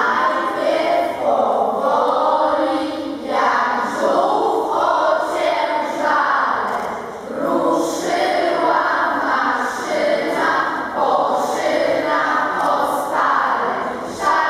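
A group of children's voices singing a song together in short, rhythmic phrases.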